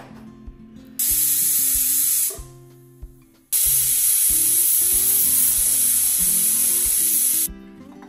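Stovetop pressure cooker whistling twice as it vents steam: a loud hiss about a second in lasting just over a second, then a longer one of about four seconds. The two whistles mark the rice inside as cooked.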